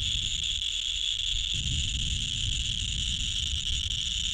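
Steady, continuous high-pitched trilling of insects such as crickets or grasshoppers, with a low rumble coming in about a second and a half in.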